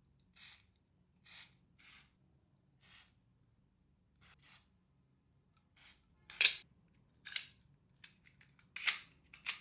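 Gas airsoft M1911 pistol being worked by hand, making a series of short mechanical clicks and snaps. Several much louder sharp cracks follow in the last three seconds.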